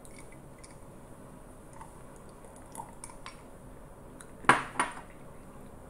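Two sharp clicks or knocks about a third of a second apart, near the end, over faint background hiss.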